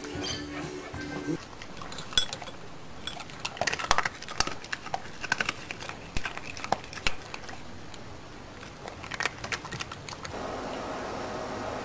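A dog and a cat eating dry kibble from one shared bowl: irregular crunching and clicking of kibble and teeth against the bowl. Music plays for the first second or so, and a steady hiss takes over near the end.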